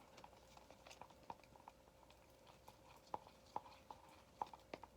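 Faint, irregular sticky clicks and taps of a mixing stick stirring glue and paint in a bowl while making slime.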